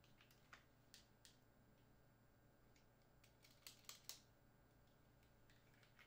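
Faint clicks and ticks of a camera and its quick-release strap hardware being handled, with a short run of sharper, louder clicks about four seconds in.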